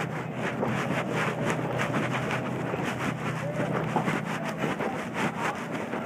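Steady low machinery hum with wind buffeting the microphone.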